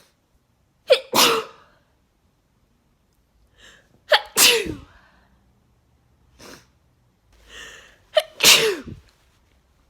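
A person sneezing three times, about three and a half seconds apart, each sneeze a short sharp catch followed by the main loud burst. The sneezing comes from a bad head cold.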